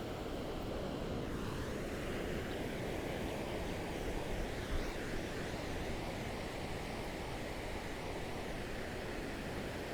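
Ocean waves washing and lapping against a beach shore, a steady even wash of surf.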